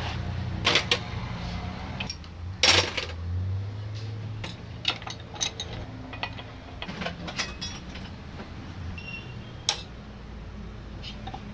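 Small metal parts and tools of a diesel fuel injection pump clinking and clicking as they are handled, a dozen or so sharp clicks, the loudest about a second in and near three seconds in, over a steady low hum.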